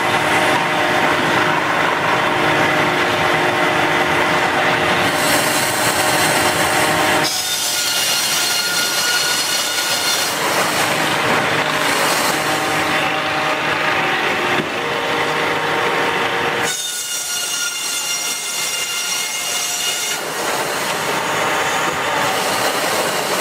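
Power saw machinery cutting wood, a loud steady grinding noise with high ringing tones over it, changing abruptly about 7, 17 and 20 seconds in.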